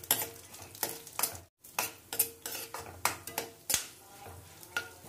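Steel spoon scraping and clinking against a stainless steel kadhai in irregular strokes as melon seeds are stirred and roasted in a little ghee. The sound cuts out for a moment about a second and a half in.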